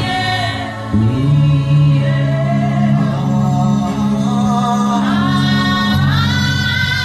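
Slow, wordless worship humming and singing: long held vocal notes that glide between pitches over sustained low tones.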